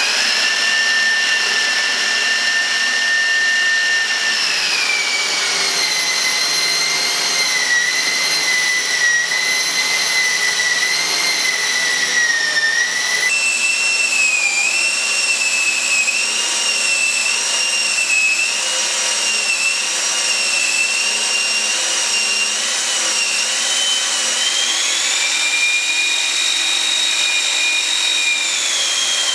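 Electric drill running continuously with a high motor whine; the pitch drops about four seconds in, jumps up suddenly midway and climbs again near the end as the speed changes.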